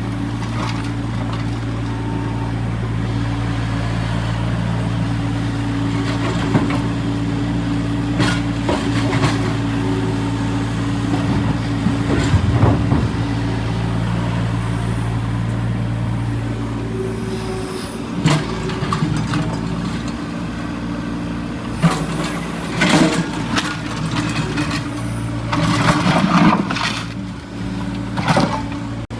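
Excavator's diesel engine running steadily, with irregular metallic clanks and knocks from the working machine, several coming close together in the last third.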